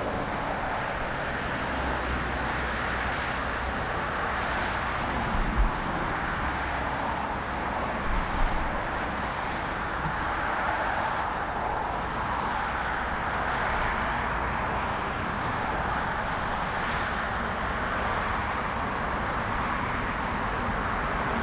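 Steady roar of jet airliner engines at an airport, with gusty wind buffeting the microphone in two low thumps, about five and eight seconds in.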